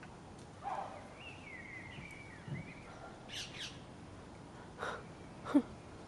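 Birds calling in a tree: a short warbling phrase about a second in, then a few short, harsh single calls.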